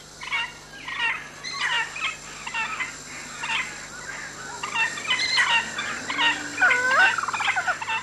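Birds calling: a run of short, rapid calls, about two a second, and near the end a louder call that sweeps down in pitch and back up.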